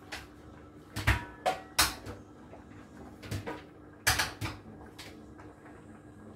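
Kitchenware being handled: a run of sharp knocks and clunks, the loudest about a second in, just before two seconds and at four seconds, over a faint steady hum.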